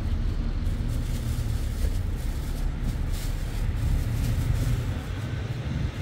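A steady low rumble with a fainter hiss above it, running without a break.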